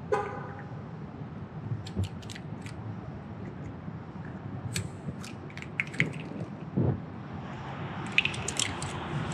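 Scattered small plastic clicks and taps as a wheel-bolt cap removal tool is pushed onto the plastic lug nut caps of a Tesla wheel and the caps are pulled off. There is a brief squeak just after the start and a dull knock a little before the end.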